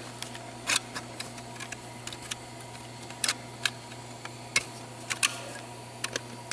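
Irregular sharp metal clicks and taps, about ten of them, from a center support snap ring being worked into its groove in a Ford 4R55E automatic transmission case. A steady low hum runs underneath.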